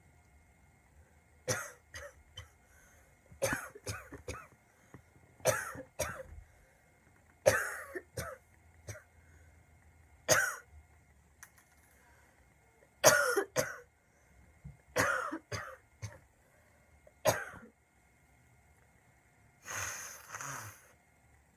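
A girl with a bad cold coughing in short fits of one to three harsh coughs, about eight fits spaced a second or two apart. Near the end there is a longer breathy, rasping sound.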